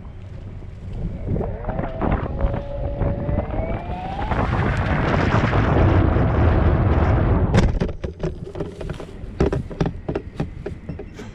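Motorised Wiral cable cam running along its line, its motor whine rising in pitch as it speeds up. From about four and a half seconds a loud rushing noise takes over, then stops abruptly near eight seconds and gives way to scattered sharp clicks and knocks.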